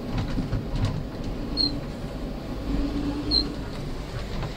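Tugmaster terminal tractor running and rumbling steadily as it is driven in swerving slides over snow. Two short high chirps sound about a second and a half apart in the middle.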